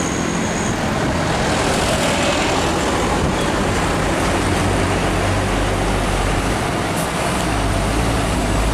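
Heavy tractor-trailer's diesel engine running as it pulls slowly along, over steady road-traffic noise. The low engine drone grows stronger near the end as the truck comes closer.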